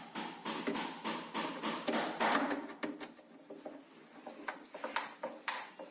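Irregular clicks, taps and scrapes of hand work on a metal drawer-slide channel being positioned and fixed in the base of a kitchen cabinet, busiest about two seconds in.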